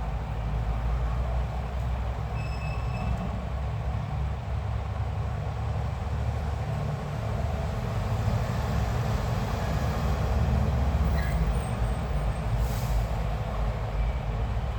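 Steady low rumbling noise, with a faint short high tone about two and a half seconds in.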